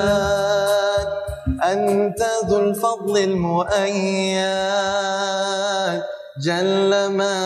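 A young man's solo voice reciting the Quran melodically into a microphone, holding long ornamented notes, with a short break for breath about six seconds in.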